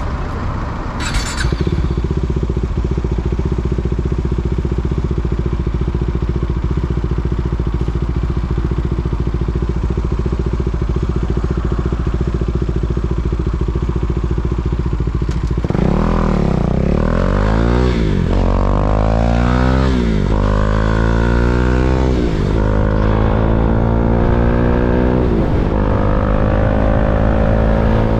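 KTM Duke 390's single-cylinder engine idling steadily for about fifteen seconds, then pulling away. Its pitch climbs and drops several times as it accelerates up through the gears, then rises more gently near the end.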